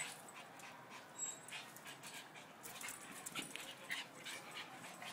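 Small dogs scuffling in a dominance tussle, with short, faint dog noises and scattered light clicks and scuffles.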